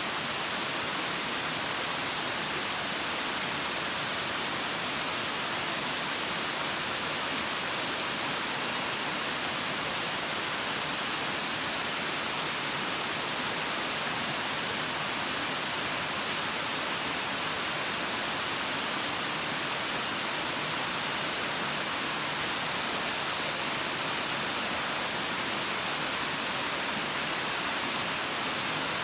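Tall waterfall cascading down a steep rock face: a steady, even rush of falling water, mostly hiss with little low rumble.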